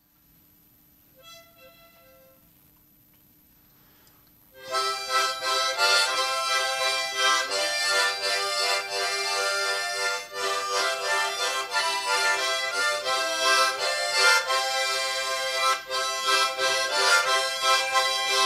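A harmonica ensemble of eight players comes in together about four and a half seconds in, playing a melody in harmony with chords of many sustained reed tones. Before that, a single brief faint note sounds about a second in.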